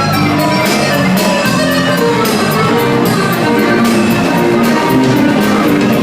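Loud live band music with sustained instrument notes over drums and cymbals keeping a steady beat.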